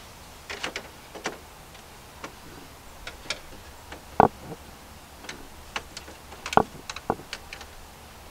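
Irregular clicks and light taps of hand work on a breaker panel, with a new circuit breaker and hand tools being handled. Two sharper knocks stand out, about four and six and a half seconds in.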